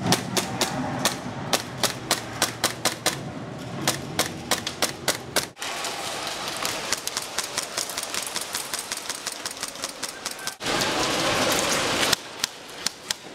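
Airsoft guns firing: single sharp pistol shots and rapid strings of shots from airsoft rifles, clacking several times a second. The firing cuts abruptly to a new burst twice.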